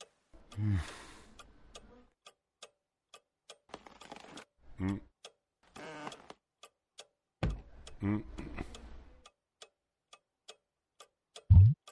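A clock ticking steadily, about two and a half ticks a second, under short low grunts that fall in pitch and breathy rustling sounds from the contorting old man.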